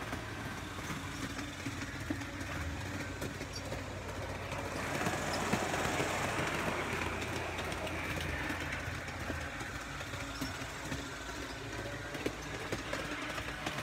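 Large-scale garden-railway model diesel locomotive running on its track: a steady electric motor hum with its wheels clicking over the rail joints, a little louder as it passes close by about five to eight seconds in.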